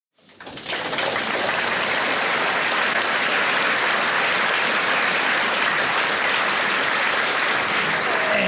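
Audience applause, a dense steady clapping that rises in over the first second and holds until the performer starts to speak.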